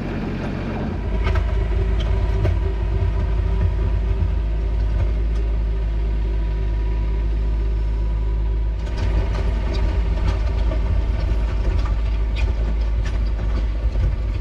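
Three-cylinder diesel engine of a Mahindra Max 26XLT compact tractor running steadily while pushing snow with its front loader bucket, with scattered clicks and rattles. It grows louder and busier about nine seconds in.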